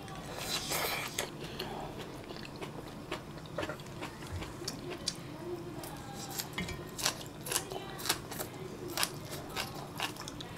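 Close-up eating sounds: a slurp of ramen noodles about half a second in, then chewing with many sharp, irregular crunchy clicks as green onion kimchi is bitten and chewed.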